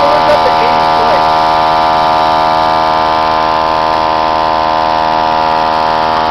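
A loud, steady buzzing hum with many evenly spaced overtones, unchanging in pitch or level.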